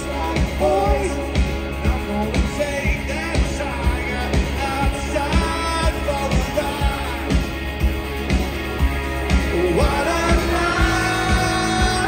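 Live rock band playing: a man singing lead over electric guitars and a steady drum beat.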